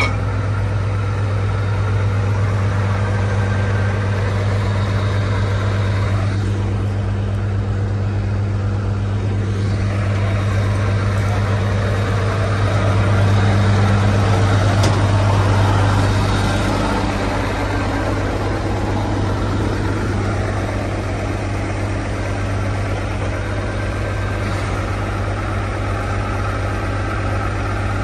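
Heavy diesel truck engine idling with a steady low drone, louder for a few seconds about halfway through.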